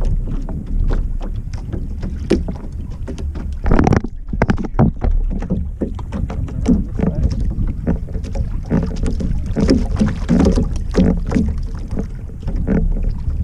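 Wind buffeting the microphone with a steady low rumble, over irregular water sloshing and splashing.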